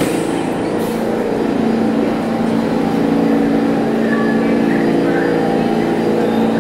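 Subway train standing in the station with its doors open, its equipment giving a steady hum of several held low tones. There is a short hiss at the start and another just under a second in.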